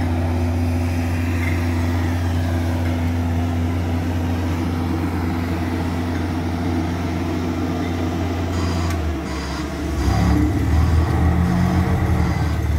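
Double-drum asphalt roller's engine running steadily as the roller compacts fresh asphalt, a constant low hum. About nine seconds in the sound dips briefly, then comes back louder and rougher.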